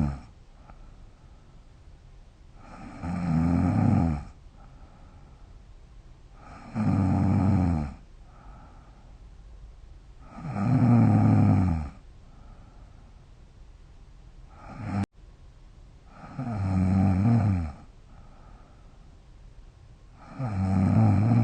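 A young woman snoring in her sleep: a low, rasping snore about every four seconds, each lasting a second or two, with a soft breath between snores. About fifteen seconds in there is a sharp click and a brief drop in level where the recording is cut.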